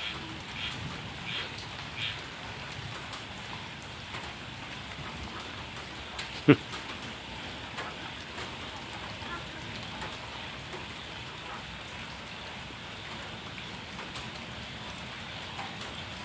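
Steady patter of rain falling on wet ground and puddles. About six seconds in there is a single short, sharp knock.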